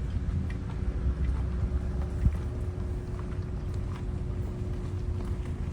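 Car running on the road, heard from inside the cabin: a steady low rumble of engine and tyres with a faint steady hum, and a single knock about two seconds in.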